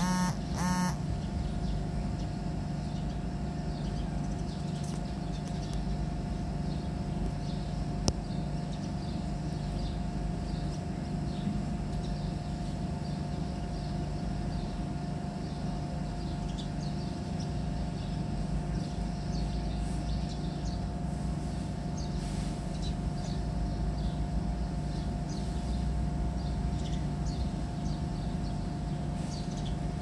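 Outdoor background ambience: a steady low rumble with a constant hum-like tone over it, two short pitched sounds right at the start, and faint scattered bird chirps, more of them in the second half.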